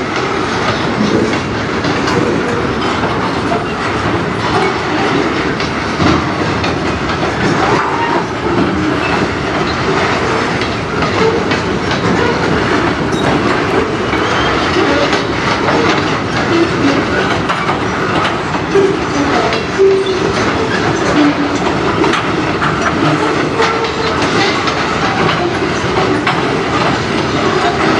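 Covered hopper freight cars rolling past, their steel wheels clattering steadily over the rail joints.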